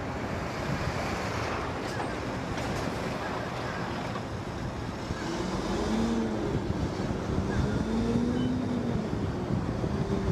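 Wind buffeting the microphone over the low rumble of harbour tugboats' engines and churned water as they work an amphibious assault ship off the pier. A faint wavering tone rises and falls through the second half.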